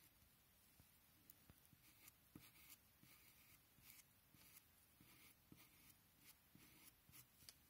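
Faint scratching of a pencil tip on paper in short, quick strokes, about one or two a second, as fine individual hairs are drawn into fur.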